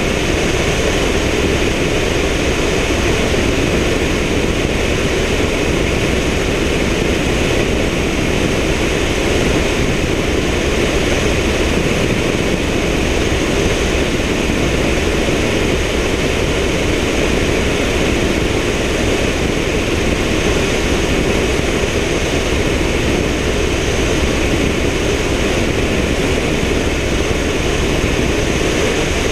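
Steady, unbroken noise of a helicopter in flight, picked up by a camera mounted on the outside of its fuselage.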